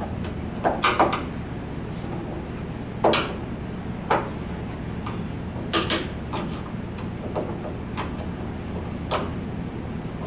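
Irregular metal clicks and knocks of hand tools and parts being worked loose inside a VW Beetle door: three quick ones about a second in, sharper single ones near the third and sixth seconds, and a few more later. A steady low hum runs underneath.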